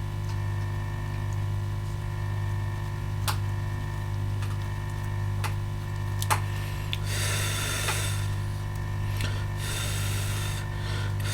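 Steady electrical hum from the repair bench, with a few light tool clicks and, from about seven seconds in, short spells of scrubbing noise as the laptop motherboard area is cleaned.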